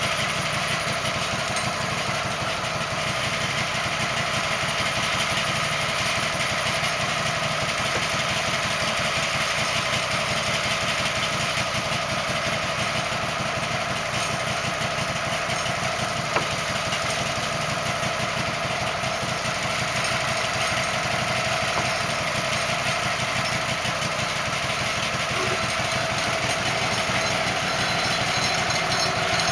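Wood-Mizer portable band sawmill running steadily, its engine and band blade at a constant pitch, with one brief click partway through.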